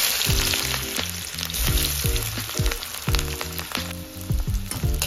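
Sliced onions frying in hot oil in a steel kadai: a loud sizzle that bursts out as they go in, then settles to a steadier, quieter sizzle.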